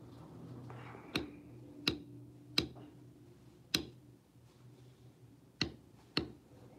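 Six sharp strikes of a mallet on a leather backgrounding stamp, unevenly spaced: the background spaces of a tooled leather pattern being stamped down.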